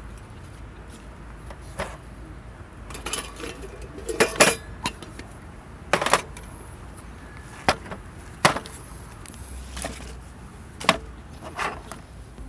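Irregular knocks and clinks of hard objects being handled and set down, about a dozen spread unevenly, over a low steady hum.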